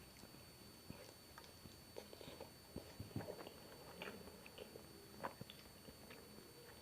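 A person chewing and biting food close to the microphone: soft, irregular mouth clicks and smacks.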